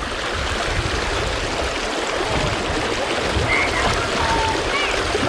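Shallow water at the Mississippi River's headwaters, flowing and babbling steadily over rocks. A few faint high chirps come about three and a half and four and a half seconds in.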